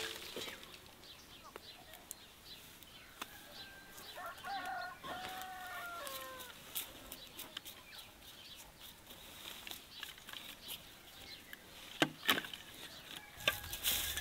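A rooster crows once, about four seconds in: a call of about two seconds that falls away at its end. Around it are scattered rustles and clicks of carrots and leafy tops being handled, and a few louder knocks near the end.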